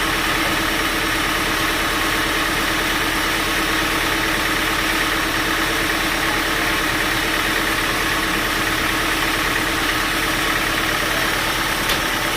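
Band sawmill machinery running steadily, a constant dense mechanical noise with a steady hum, and one sharp click near the end.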